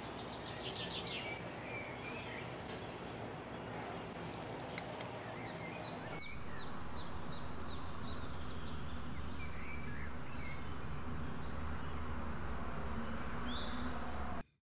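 Steady outdoor background noise with birds chirping: a quick run of chirps about a second in, then a string of short repeated calls, about two or three a second, until about 8 seconds. The background noise steps up louder about 6 seconds in, and all sound cuts off abruptly just before the end.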